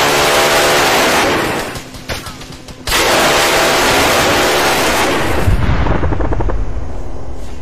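Rocket launches: a loud rushing roar that fades, then cuts back in suddenly about three seconds in, with a deep rumble and rapid crackling near the end.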